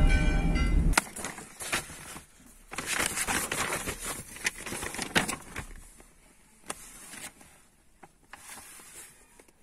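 Background music stops abruptly about a second in. It is followed by a large folded paper hiking map rustling and crackling as it is opened and handled, in irregular bursts with sharp crinkles that die down toward the end.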